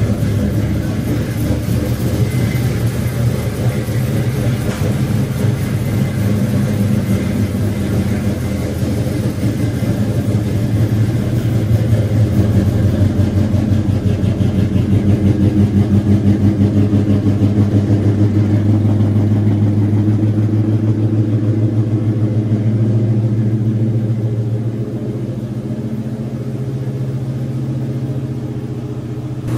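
Chevrolet C10's carburetted V8 idling steadily just after a cold start, the exhaust note pulsing evenly. About 25 seconds in, the idle drops a little lower.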